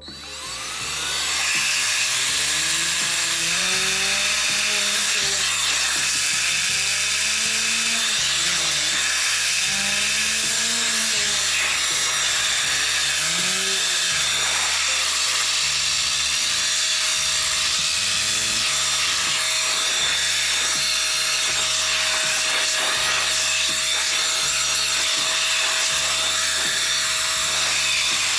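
ICANZUO TAD06 cordless air duster switched on, its motor spinning up within about a second to a steady, loud rush of air with a high motor whine, blowing through the long nozzle at a computer case fan.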